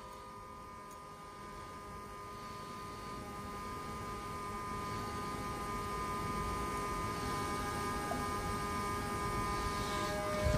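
Steady electrical hum made of several steady tones over low noise, growing gradually louder.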